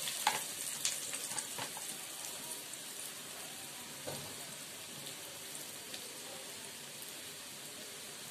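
Breadcrumb-coated bread and potato patties deep-frying in hot oil in a kadhai: a steady sizzle with scattered crackles, loudest at first as a freshly added patty starts to fry, then settling over the first couple of seconds.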